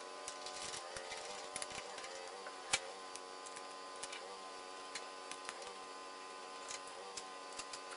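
Soft background music with scattered light metallic clicks and taps of hand tools and bolts at a motorcycle handlebar clamp. One sharper click comes near three seconds in.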